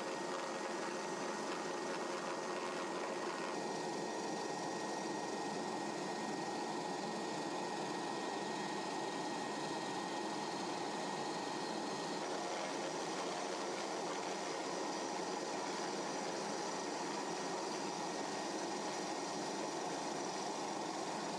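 Steady helicopter cabin noise: an even rushing hiss with a faint steady high whine, and a slight shift in the mix about three and a half seconds in.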